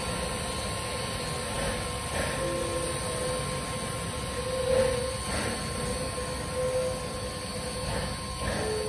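Pere Marquette 1225, a 2-8-4 Berkshire steam locomotive, standing at rest: a steady hiss and hum with a few faint knocks.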